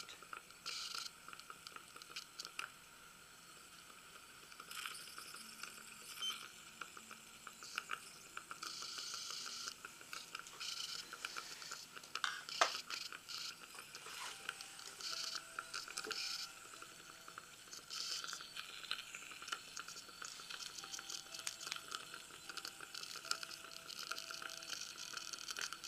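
Faint crackling and gurgling of a dental saliva ejector sucking at the mouth, with small irregular clicks throughout.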